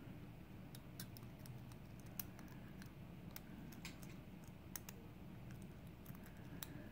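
Faint, irregular small clicks and scrapes of a thin metal lock shim being worked against a DOM IX dimple lock cylinder, finding the tolerances too tight to slip in.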